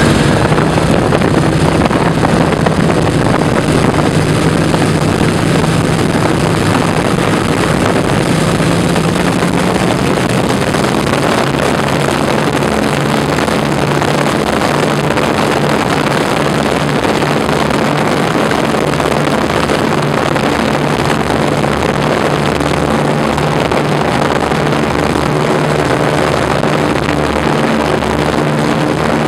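1929 Ford Trimotor's radial engines running loud and steady, heard from inside the cabin as the plane rolls along the ground. The low engine note shifts about ten seconds in and then pulses unevenly.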